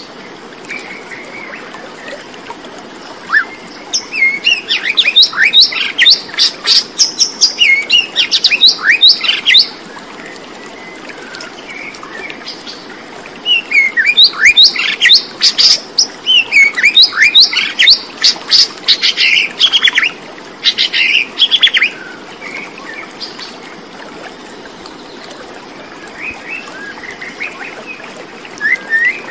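Birds chirping: dense runs of short, quick, mostly falling chirps in two long bouts, with sparser calls between, over a steady hiss.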